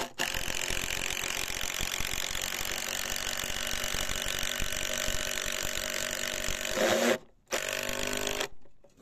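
Makita cordless impact driver hammering a long screw into a timber sleeper: a continuous rapid clatter for about seven seconds, a brief pause, then a final burst of about a second as the screw is driven home.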